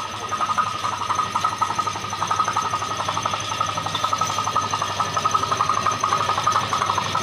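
A small machine's motor running steadily with a rapid, even pulsing.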